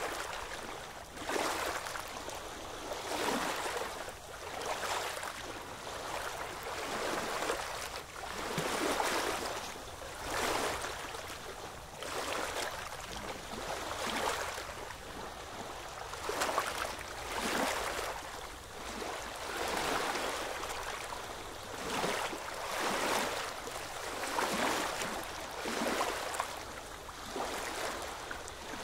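Small waves lapping and washing in shallow sea water, in gentle swells every second or two.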